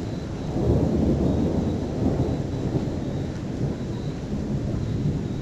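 Rolling thunder from an electrical storm: a long low rumble that swells about a second in and keeps rolling.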